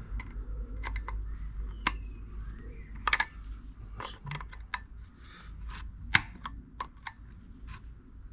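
Hand tools clicking and tapping on small steel parts while locking tabs are bent up: irregular sharp clicks, with a louder double tap about three seconds in and another sharp tap about six seconds in.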